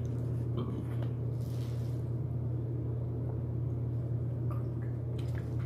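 A person drinking water, with faint swallowing and small mouth and cup clicks, over a steady low hum.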